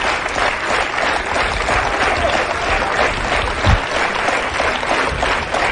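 Studio audience applauding steadily, a dense crackle of many hands clapping, with a single low thump about three and a half seconds in.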